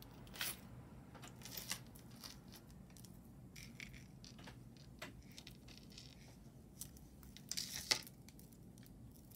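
Quiet handling noise: a few light clicks and rustles as costume jewelry is picked up and set down, with a short cluster of clicks about eight seconds in.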